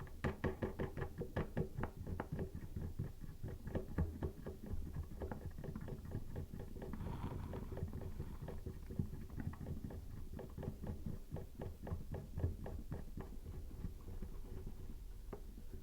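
A toilet seat nut being threaded by hand onto its seat bolt: a long, irregular run of quick, light clicks and knocks.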